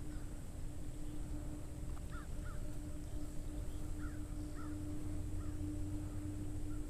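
A low rumble with a steady hum, and a few faint, short bird calls, some in pairs, about two, four and five seconds in.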